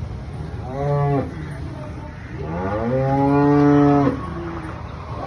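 Dairy cow mooing twice: a short moo about a second in, then a longer one that rises in pitch and holds for nearly two seconds.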